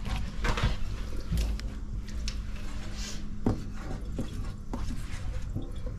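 Kitchen knife cutting conch meat on a marble cutting board: irregular clicks and knocks of the blade on the stone, over a steady low hum.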